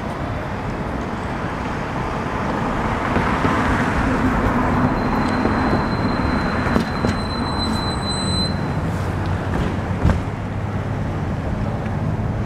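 Steady city traffic noise from passing cars, slowly building, with a thin high whine for a few seconds midway and a single sharp click about ten seconds in.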